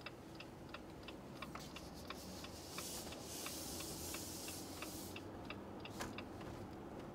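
Car turn-signal indicator clicking steadily, about three clicks a second, heard from inside the car cabin over a low rumble. A brief rush of noise comes about three seconds in.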